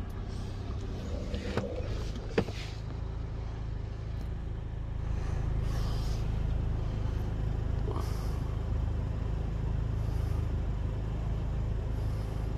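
A motor's steady low hum, like an engine idling, with two sharp clicks about two seconds in.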